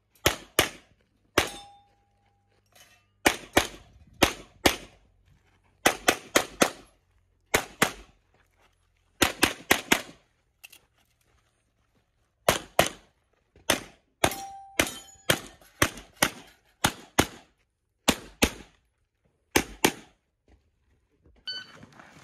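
Pistol shots fired in quick pairs and short strings, with gaps of a second or two between strings: a competition handgun run through a USPSA stage.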